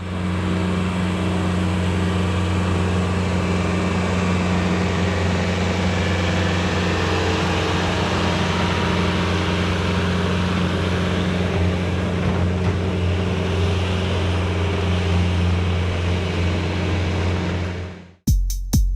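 Skid steer engine running steadily at constant speed, with no revving; it cuts off abruptly near the end.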